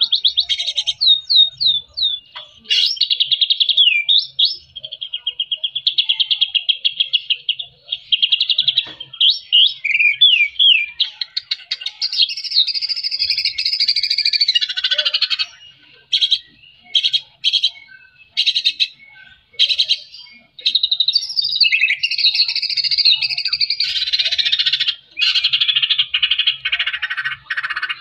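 Male white-rumped shama singing a long, varied song of fast rattling trills, repeated notes and quick whistled glides. For a few seconds in the middle it breaks into short separate notes with gaps.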